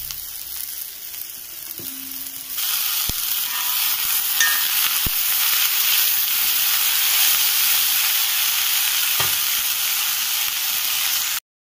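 Chopped onions and tomatoes sizzling in butter in a black kadai while a metal spoon stirs them. The sizzle grows louder about two and a half seconds in, with a few light clicks of the spoon against the pan. It cuts off suddenly near the end.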